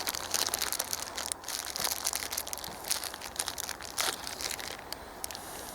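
Small crinkly packaging crackling as it is handled close to the microphone, a dense run of rapid crinkles that thins out near the end.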